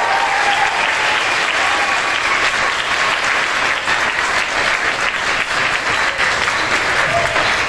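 A large audience applauding, many hands clapping steadily and loudly.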